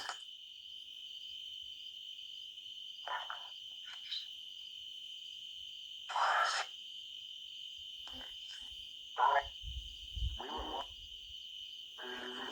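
A steady, high drone of night insects chirping, with short choppy bursts of sound every second or two: fragments from a spirit box app sweeping through radio stations, played through a phone's small speaker.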